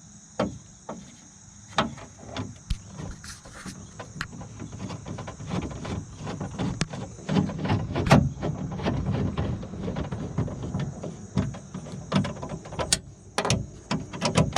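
Irregular clicks, knocks and rattles of a car window regulator being handled and worked back into a door through its access holes, busiest in the middle.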